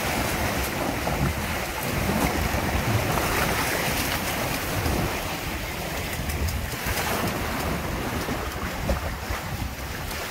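Water rushing and splashing along the hulls of a Windrider 17 trimaran sailing fast through chop, with wind buffeting the microphone in gusts.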